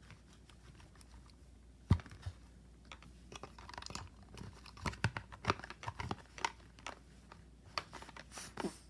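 Hands handling plastic toys: one sharp plastic click about two seconds in, then scattered light clicks, taps and soft sticky crackles as a small action figure is set into the slime-coated mouth of a Kenner Sludge Bucket ghost toy.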